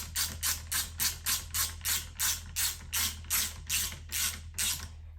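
Hand ratchet wrench clicking in steady, even strokes, about three or four a second, as a seat-rail bolt is run down; it stops near the end.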